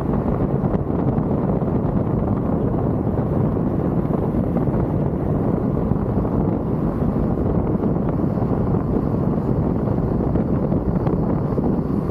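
A car on the move: a steady low rumble of wind and road noise, with wind buffeting the microphone.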